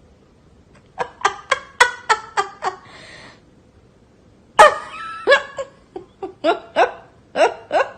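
Laughter in two runs of short, rhythmic bursts of about four or five a second: one starting about a second in, a louder one past the halfway point.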